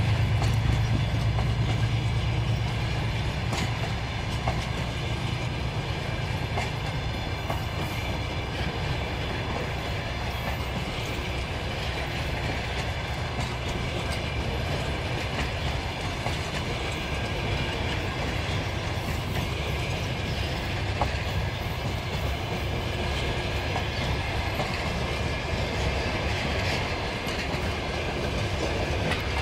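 Passenger coaches rolling past, their wheels clattering over rail joints in a steady rumble with an occasional sharper knock. The low drone of the departing diesel locomotive fades away over the first few seconds.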